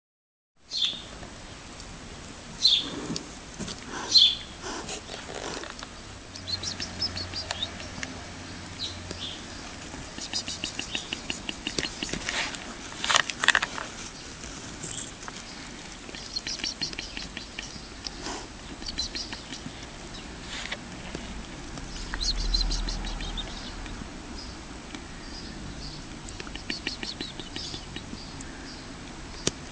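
Short high chirps and fast chattering trills of small birds, over a steady faint hiss, with a brief low rumble about two-thirds of the way through.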